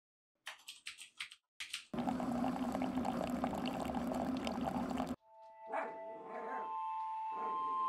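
A few short clicks, then a coffee machine dispensing coffee into a mug, a steady pouring hum for about three seconds that cuts off abruptly. Steady electronic tones follow.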